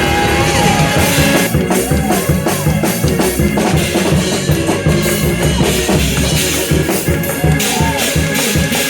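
Live church praise music led by a drum kit playing a steady, driving beat with bass drum.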